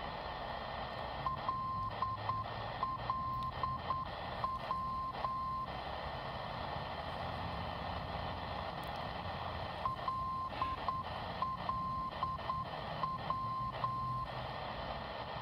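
Aviation non-directional beacon LLW on 254 kHz, received on a Tecsun PL-368's longwave band: its Morse identifier "L L W" (·−·· ·−·· ·−−) is keyed as a beeping tone, sent twice about eight seconds apart, over a steady hiss of static from the radio's speaker.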